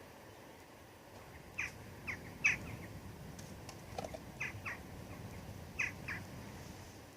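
A small bird chirping: short, downward-sliding calls in twos and threes, over a faint steady background hiss.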